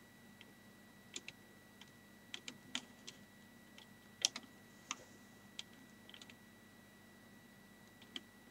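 Light, irregular plastic clicks from a Lego-brick rifle mechanism being worked by hand, about a dozen in all, with one sharper click about four seconds in.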